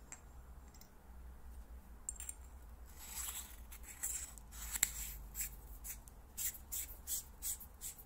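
Convoy M4U flashlight tail cap being screwed onto the aluminium body tube after the battery goes in: a run of short, dry scraping strokes from the threads, coming at about three a second near the end.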